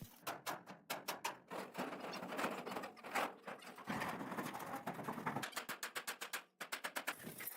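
Rapid, irregular clicking and tapping, several strokes a second, with a stretch of dense hiss in the middle and a faster, even run of clicks near the end.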